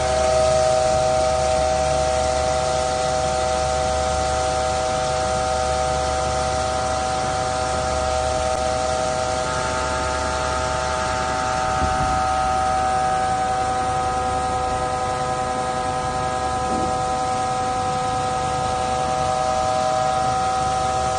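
4-axis CNC knife-grinding machine running, its wheel grinding a blade blank under coolant spray: a steady whine of several held tones over a constant spraying hiss.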